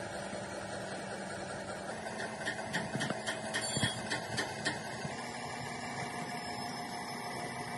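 Brake lathe running steadily while turning a brake disc or drum, with a quick run of sharp clicks or knocks from about two and a half seconds in, lasting about two seconds.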